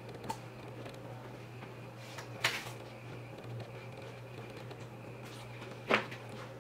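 Quiet room tone with a steady low electrical hum, broken by two brief soft swishes, about two and a half seconds in and again near the end.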